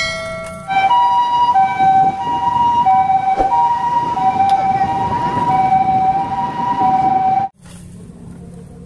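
Japanese ambulance two-tone siren ("pi-po"), alternating high and low about every two-thirds of a second, over street traffic noise. It cuts off suddenly about seven and a half seconds in.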